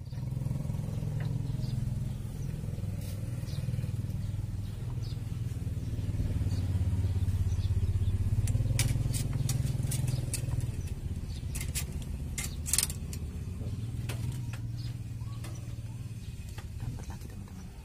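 A motor engine running steadily with a low hum that swells and then fades away, with scattered light clicks.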